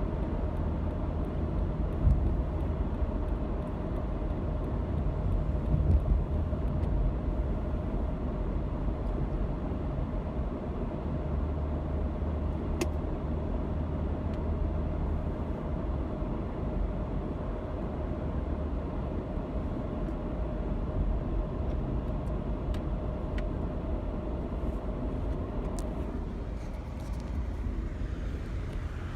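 Car being driven, heard from inside the cabin: steady engine and road rumble with a faint steady hum and a few light clicks.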